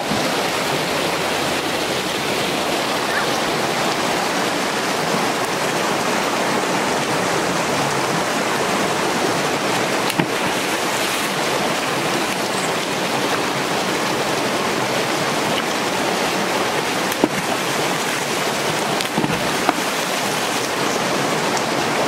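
Shallow creek running over rocks: a steady rush of flowing water, with a few brief sharp knocks about halfway through and again near the end.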